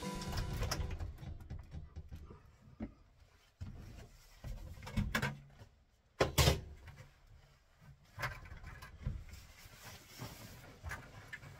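A cabin door with a lever latch being opened, then scattered knocks, clunks and thumps of someone moving about and handling things in a small room. The loudest thump comes about six seconds in.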